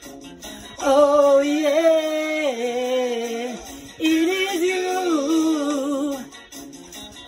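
A single voice singing a wordless melody in two phrases, each stepping up and down in pitch, with short pauses between and no bass or drums beneath it.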